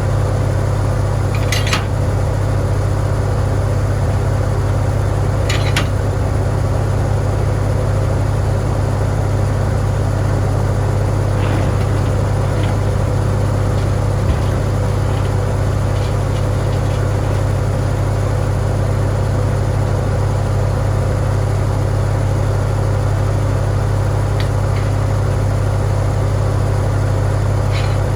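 Farmall tractor engine running steadily, a loud, even drone without change in speed, with a few faint sharp clicks scattered through it.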